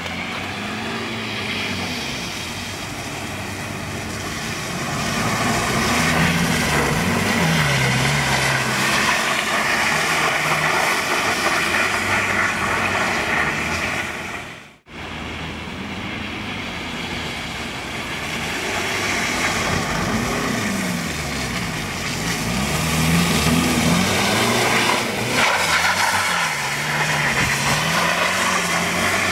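BMW E46 320d's four-cylinder turbodiesel revving up and down repeatedly as the car slides through drifts, over a steady rushing noise. The sound drops out for a moment about halfway through.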